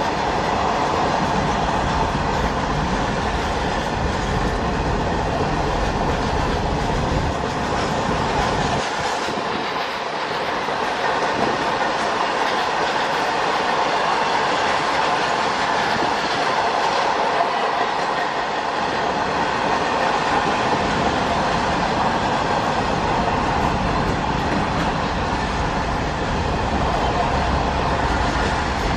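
Long freight train of open-top wagons passing close by: a steady noise of wagon wheels running over the rails. The deep rumble thins out for about ten seconds in the middle.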